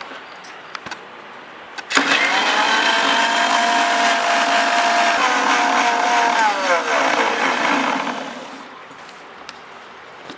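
Electric mixer-grinder starts with a sharp click about two seconds in and runs with a steady whine, blending eggs, garlic and pepper in the large jar. After about four and a half seconds it is switched off and winds down, its pitch falling as it fades.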